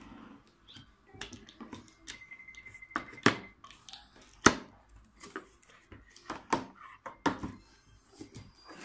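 A cardboard box being opened by hand: scissors slitting the packing tape and the flaps being pulled open, with a series of sharp taps and knocks on the cardboard, the loudest about three and four and a half seconds in.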